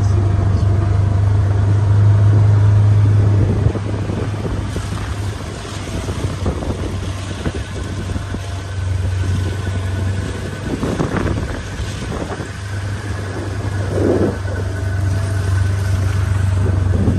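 A vehicle moving slowly, giving a steady low hum that drops off about four seconds in, with scattered crackles and rustles over it.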